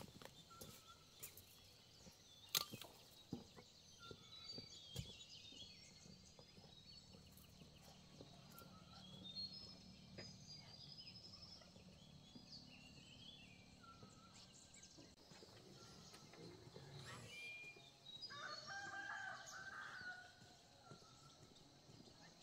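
Faint farmyard sounds: scattered short bird chirps throughout, a few sharp clicks in the first seconds, the loudest about two and a half seconds in, and a rooster crowing once for about two seconds near the end.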